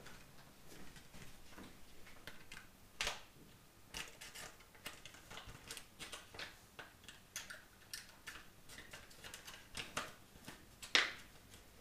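Irregular light clicks and ticks of hands handling a small plastic parts box and a small orange breather valve, with two sharper clicks about three seconds in and near the end.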